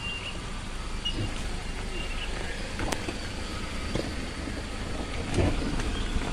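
Pickup truck engine idling steadily, with a single sharp click about three seconds in.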